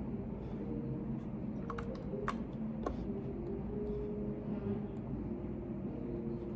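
A few scattered keystrokes on a computer keyboard, bunched together about two to three seconds in, over a steady low hum of office room noise.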